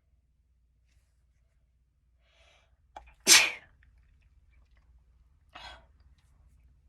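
A person sneezing once, loud and sudden, about three seconds in, after a faint intake of breath. A shorter, quieter burst of breath follows about two seconds later.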